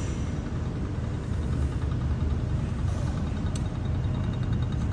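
Steady low rumble of background noise, with a single faint click about three and a half seconds in.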